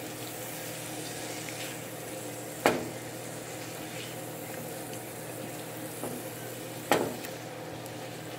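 Food cooking on a stovetop: a steady low sizzle, with two sharp knocks, one about a third of the way in and one near the end.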